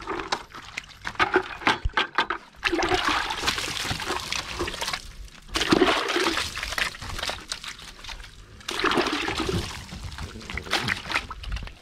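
Water splashing and pouring back into a plastic bucket as a wet microfiber towel is dunked and wrung out, in three bursts of a second or two each.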